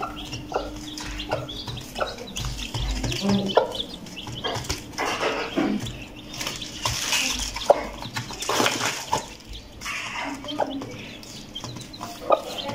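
An Aseel hen and her chicks moving about on feed in a cardboard box: irregular pecking taps and scratching, rustling on the cardboard.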